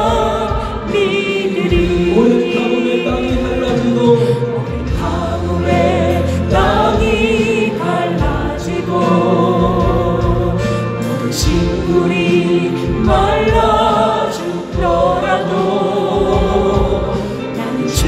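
Gospel song with choir singing over instrumental accompaniment.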